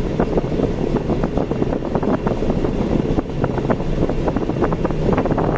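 Car driving on a road: steady road and wind noise with light rattling.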